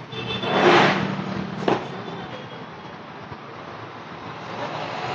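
Hands working a wire onto a magnetic contactor's terminal: a short rustling swell, then a single sharp click about a second and a half in, over a steady low hum.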